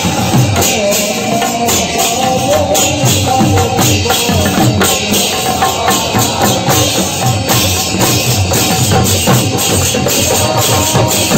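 Live devotional music from a drum and harmonium ensemble: a steady, quick beat of percussion strokes under a wavering melody line.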